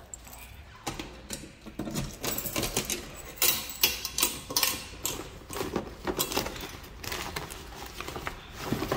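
Paper mail being handled: magazines and envelopes rustling and shuffling as a hand rifles through a stuffed metal mailbox, with irregular clicks and taps.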